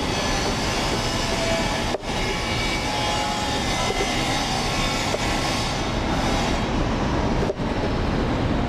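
Steady, loud rumbling noise with no distinct strokes, broken by two brief dropouts, about two seconds in and near the end.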